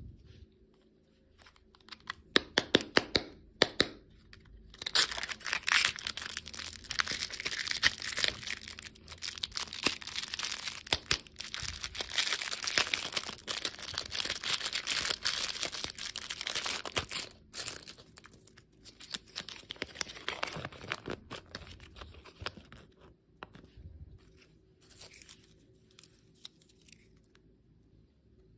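Candy packaging being torn open and crinkled: a few sharp snaps, then a long stretch of continuous tearing and crinkling, and a shorter burst later on.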